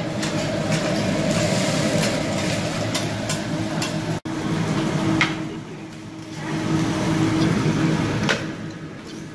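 Hibachi teppanyaki griddle sizzling over a steady low hum, with scattered sharp metal clinks. The sound cuts out for an instant a little past four seconds, then comes back.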